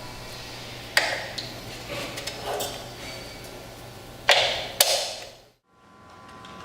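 Three sharp knocks, one about a second in and two close together past the four-second mark, each ringing out briefly over a faint steady hum.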